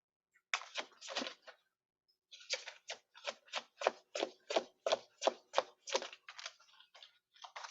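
A deck of tarot cards being shuffled by hand: a quick, even run of crisp card slaps, about three a second, broken by a short pause about two seconds in.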